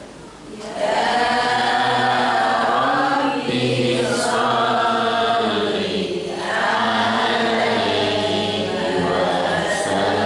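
A man's voice chanting a devotional melody into a microphone, in long held phrases broken by short breath pauses every few seconds.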